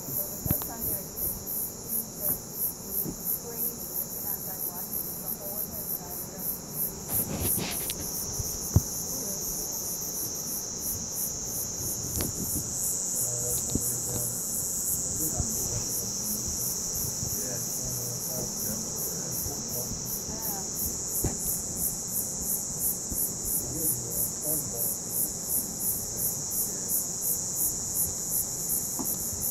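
Crickets and other night insects chirping: a high, evenly pulsing trill over a steady high buzz, with one sharp click about nine seconds in.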